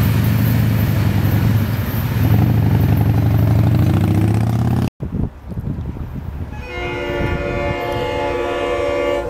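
Freight train cars rolling along the track, a steady rumble with a low hum. After an abrupt cut about five seconds in, a distant diesel locomotive's air horn sounds one long chord of several tones, warning of the grade crossing ahead.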